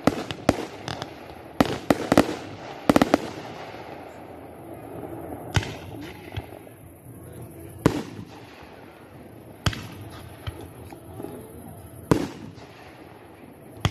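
Aerial firework shells bursting. A quick run of sharp bangs comes in the first three seconds, then single bangs about every two seconds.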